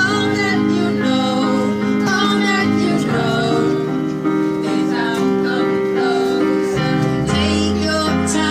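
Music: a song with a singing voice over sustained instrumental chords.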